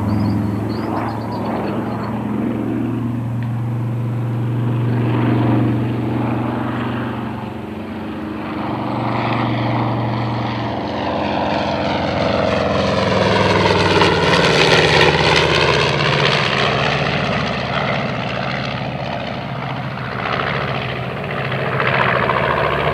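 A North American B-25 Mitchell's twin Wright R-2600 radial engines as the bomber flies low past. The steady throb swells to its loudest about halfway through, with a sweeping whoosh in the tone as it passes, then eases as it banks away.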